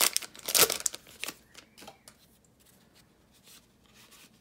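Crinkling of a torn foil booster-pack wrapper as a stack of trading cards is pulled out of it, loudest in the first second. After that only faint rustling and ticks of the cards being handled.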